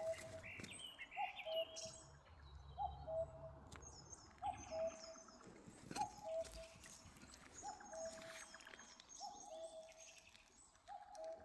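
A bird repeating a two-note call, a short higher note then a longer lower one, about once a second. Smaller birds chirp high above it.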